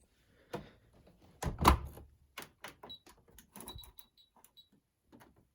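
A run of knocks and clunks from a door or drawer being handled, the loudest about one and a half seconds in, with a string of short high beeps in the middle.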